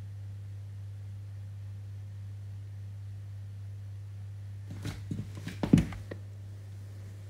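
A steady low hum, with a short run of clicks and knocks about five seconds in, the loudest just before six seconds.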